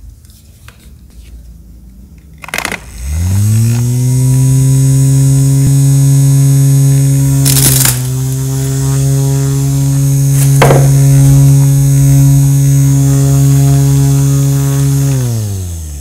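Handheld mini spray fan's small electric motor and plastic blades: switched on with a click, spinning up with a rising hum, running steadily, then winding down with a falling hum near the end. Two sharp clicks break in midway.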